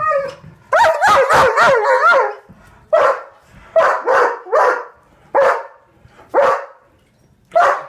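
German shepherd barking excitedly at the prospect of a car ride: a quick run of high, sliding yelps, then a string of single loud barks about a second apart.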